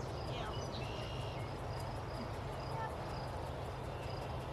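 Outdoor rural ambience: a short, high chirp repeats about twice a second, a few brief bird-like calls come mostly in the first second, and there is a steady low rumble underneath.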